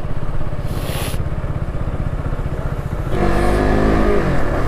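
Single-cylinder motorcycle engine of a KTM RC 200 running on the move, with a short hiss about a second in. About three seconds in the engine note grows louder and then falls in pitch.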